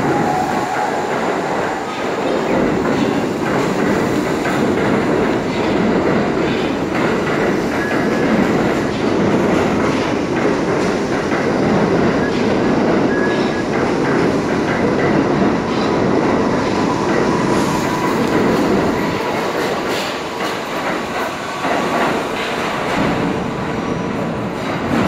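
R68 subway train pulling out along the platform and away into the tunnel: a steady rumble of the cars with scattered clatter of wheels over rail joints and a faint wheel squeal in the middle.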